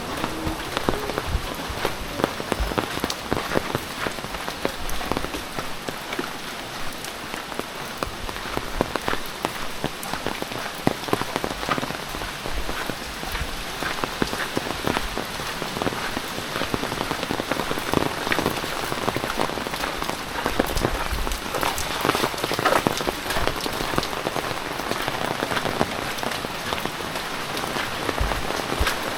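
Heavy typhoon rain falling: a steady, dense spatter of drops striking hard surfaces.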